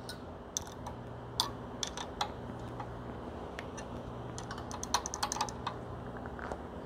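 Small metallic clicks and taps of a wrench and Allen key on a belt grinder work rest's angle-stop screw as its jam nut is tightened: scattered single clicks, then a quick run of them about five seconds in.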